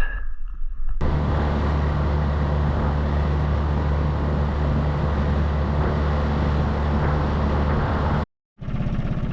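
Outboard motor running steadily on a moving boat, a low even hum under a rushing hiss. It starts abruptly about a second in and cuts out briefly near the end before resuming.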